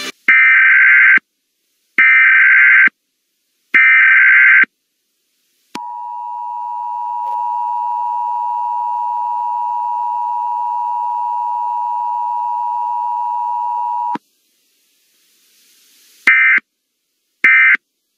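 Emergency Alert System tones: three one-second bursts of SAME header data, then the two-tone attention signal held steady for about eight seconds, then two short data bursts near the end.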